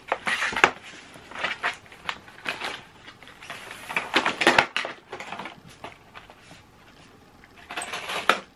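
Plastic wrapping and bags of small plastic parts crinkling and rustling as a packaged kit is unwrapped and handled, in short irregular bursts with brief lulls; the longest burst comes about four seconds in.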